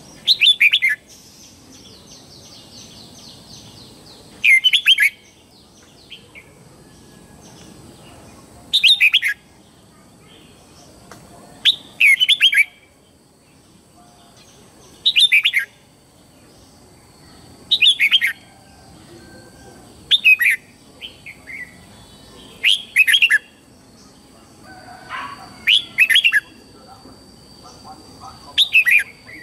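Red-whiskered bulbul singing its morning song: short, loud whistled phrases, each falling in pitch, repeated about every three seconds. Fainter bird chatter comes in between the phrases.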